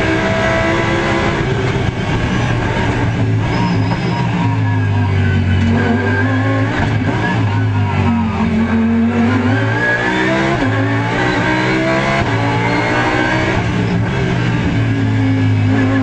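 Audi R8 LMS GT3 race car's 5.2-litre V10 at racing speed, heard from inside the cockpit, its pitch climbing and stepping through the gears. Around the middle the pitch falls as the car slows for a corner, then climbs again on the way out.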